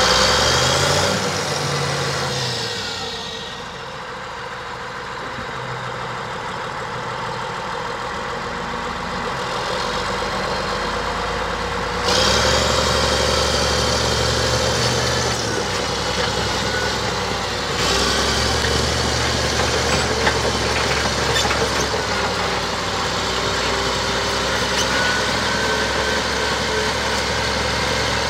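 Caterpillar D6H crawler dozer's diesel engine running: loud at first, easing back over the first few seconds, then picking up suddenly twice, about twelve and eighteen seconds in, as the dozer drives forward on its tracks.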